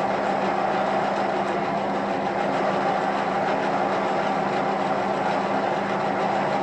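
Metal lathe running steadily with a constant motor and gear hum, while a large twist drill held in the tailstock bores into the workpiece spinning in a four-jaw chuck.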